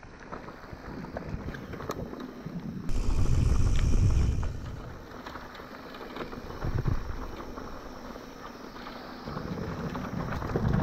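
Mountain bike riding over a rough dirt track, with scattered clicks and rattles from the tyres and frame. Wind buffets the microphone, with louder gusts about three seconds in and again near the end.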